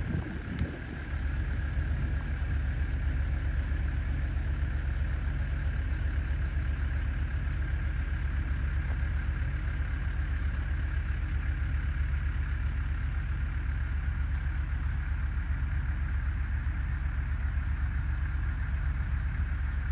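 A vehicle's engine and road noise heard from inside the cab while driving, a steady low rumble with a fast, even flutter.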